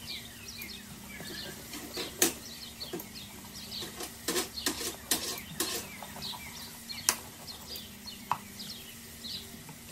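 Kitchen knife cutting around the stem of a red bell pepper on a wooden board: a handful of sharp, crisp cracks as the blade breaks through the pepper's flesh, the loudest a couple of seconds in and near seven seconds. Behind them, small birds chirp over and over in quick high calls.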